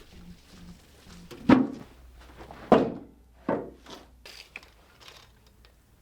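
Three heavy, dull thunks of wood on wood, about a second apart, with lighter knocks and ticks between: squared oak log sections being handled and set against one another.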